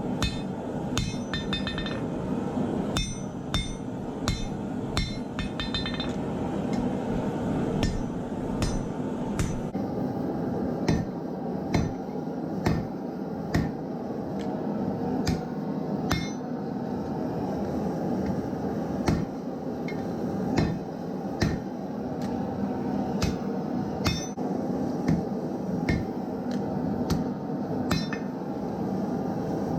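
Hammer blows forging leaf-spring steel into a meat cleaver on an anvil: repeated sharp, ringing strikes at an uneven pace, roughly one or two a second, over a steady rushing noise.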